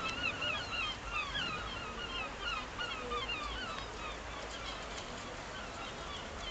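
A flock of birds calling together: many short, overlapping, wavering calls that thin out after about four seconds.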